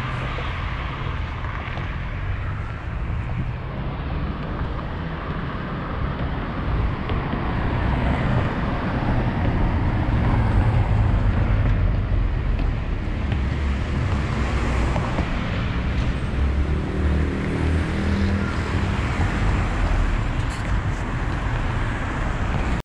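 Steady vehicle road noise: a low rumble with hiss, a little louder around the middle.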